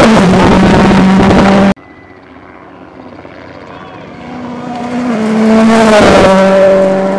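A rally car's engine at full throttle close by, cut off abruptly about a second and a half in. A second rally car then approaches, its engine note climbing and stepping with gear changes. It passes close at full throttle about six seconds in and fades away.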